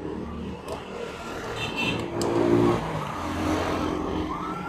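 A motor vehicle engine running, its pitch shifting up and down, with a few short light clicks over it.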